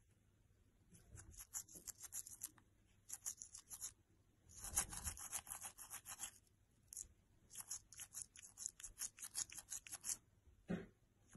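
Toothbrush bristles scrubbing a German Shepherd's teeth: rapid, faint back-and-forth scratchy strokes in about four bursts separated by short pauses, the strongest burst near the middle.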